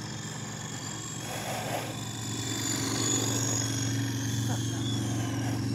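Small electric RC helicopter (Feilun FX070C) flying, with a high thin motor and rotor whine that wavers in pitch. A low steady hum joins about two seconds in and grows louder.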